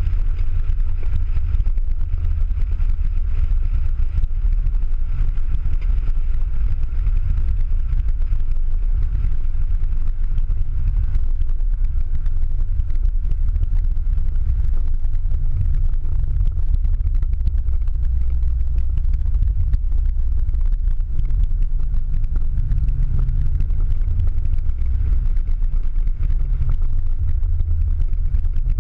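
Ford Mustang Boss 302's V8 running on track, heard from inside the cabin as a steady deep drone, with tyre and road noise on the wet track.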